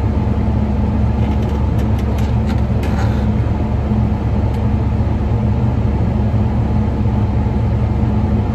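Farm tractor engine running at a steady speed, a constant low hum with a few faint clicks between about one and three seconds in.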